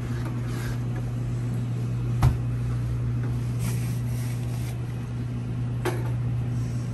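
Steady low machine hum, with two sharp knocks, one a little over two seconds in and one near the end.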